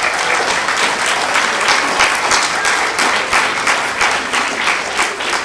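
Audience applauding: many hands clapping at once, loud and steady.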